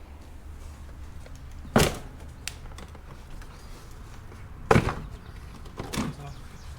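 Two loud, sharp knocks about three seconds apart, then a lighter knock near the end, over a low steady hum.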